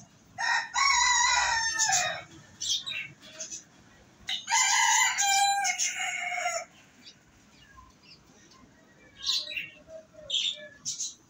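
A rooster crowing twice, each crow about two seconds long and dropping in pitch at the end.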